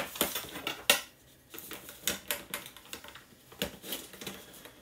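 Chronograph kit parts being handled and set down: irregular clicks and light clatter, with the sharpest knock about a second in.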